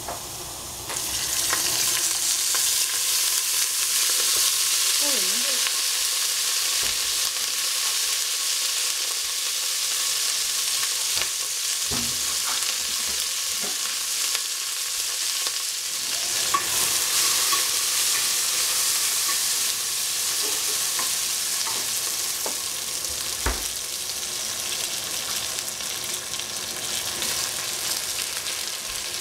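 Celery sticks, then potato strips, frying in hot oil in a stainless steel stockpot: a steady sizzle that starts about a second in, with a few knocks.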